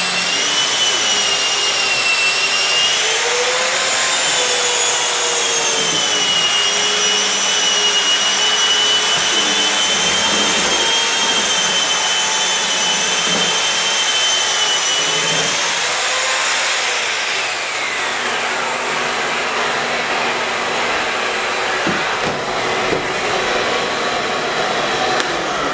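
Long-handled power drywall sander with a vacuum attachment running against sheetrock: a steady high motor whine over a rushing, scraping noise, the pitch shifting a little as it is worked. About two-thirds of the way through, the whine falls away as the sander spins down, and a steady rushing noise carries on underneath.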